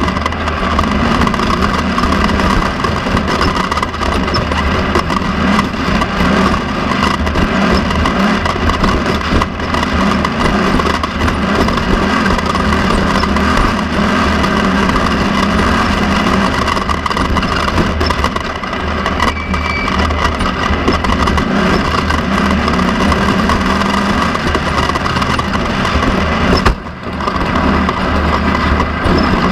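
Off-road race car's engine running hard under way, heard onboard, steady and loud, with a brief dip in loudness near the end.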